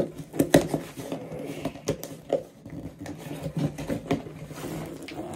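Cardboard box being forced open by hand: irregular scraping, rustling and knocks of cardboard, with a sharp knock at the start and a louder cluster of knocks about half a second in.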